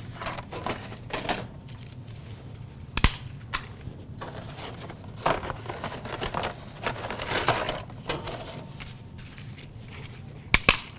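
Dry lasagna noodles being snapped by hand, a few sharp cracks among softer crinkling and handling noise.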